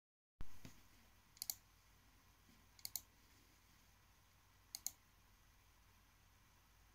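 Three crisp clicks of a laptop pointer button as menu items are chosen. Each is a quick press-and-release pair, and they come about a second and a half apart, after a soft knock at the very start. Otherwise near silence.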